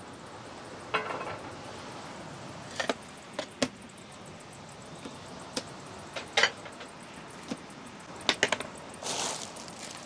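Irregular sharp knocks and clicks of small objects being handled, some in quick pairs and a cluster of three a little after eight seconds, with a short rustle or scrape about a second in and another near the end.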